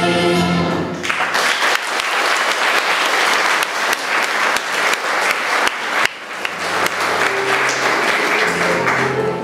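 A children's choir and backing track end on a held final chord about a second in, then an audience applauds steadily, with quieter held musical tones under the clapping near the end.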